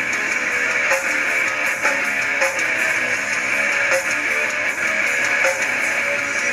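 Guitar-led music with a steady beat.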